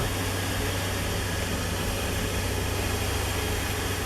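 Central vacuum running steadily, a constant rushing of air with a low motor hum as its hose sucks yellow jackets from a porch ceiling into an insect trap.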